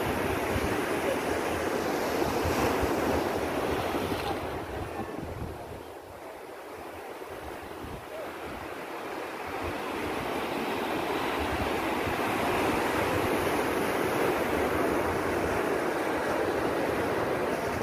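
Ocean surf breaking on a rocky reef shore, a steady rushing that eases about six seconds in and builds again, with wind buffeting the microphone.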